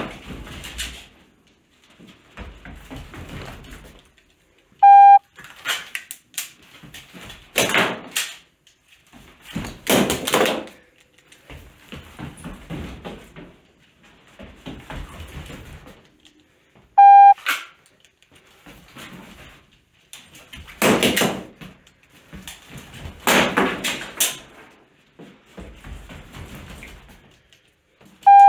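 Shot timer beeping three times, a short steady tone about every twelve seconds. Between the beeps come thuds and shuffles of quick footsteps and handling on a plywood floor.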